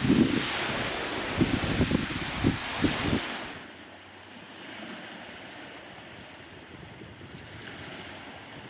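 Wind buffeting the microphone in strong gusts, with low thumps, for about three and a half seconds, then dropping suddenly to a quieter, steady rush of wind and lapping water.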